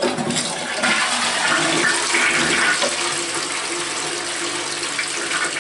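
Toilet flushing through a newly fitted Fluidmaster dual-flush valve: water rushes into the bowl as soon as the push button is pressed and keeps running steadily. A faint steady tone joins in about two seconds in.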